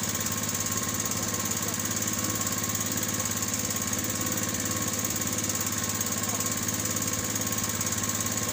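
Outrigger fishing boat's small engine running steadily, a fast, even chugging that does not change.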